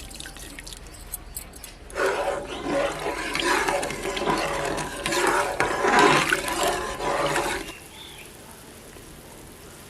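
Water with chopped vegetables and mushrooms boiling hard in an open pressure cooker, a loud bubbling, rushing sound that starts about two seconds in and cuts off abruptly a couple of seconds before the end.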